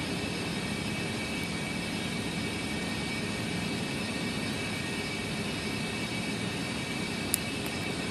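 Steady airy background hum with a faint high whine throughout; about seven seconds in, one sharp click from the Commando tactical padlock as it is being picked.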